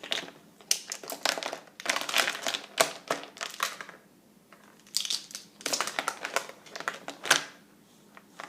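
Crinkling, crackling noise in three bursts with short quiet gaps between, like something being crumpled or crunched.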